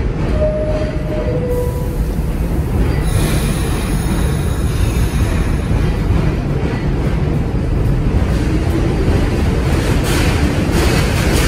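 New York City subway train's descending two-note door-closing chime, then a hiss of air about three seconds in and the steady rumble of the train pulling out of the station, with a faint rising whine near the end.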